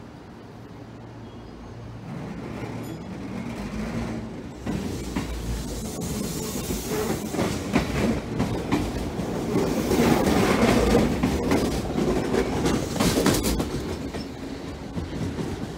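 JR 205 series (1100 subseries) electric commuter train pulling out and running past, its wheels clacking over rail joints. The sound builds to its loudest about two-thirds of the way through, then eases.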